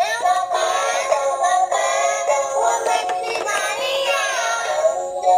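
Electronic music with a synthesized singing voice: sliding, gliding notes over a steady held tone.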